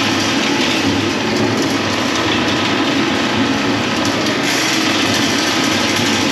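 Loud, steady machinery noise that runs on without a break.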